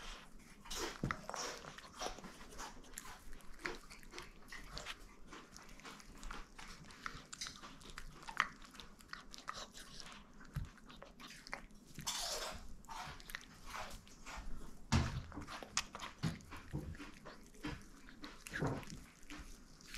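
A chihuahua chewing and crunching on a piece of chicken, with irregular wet bites and crunches, some much louder than others.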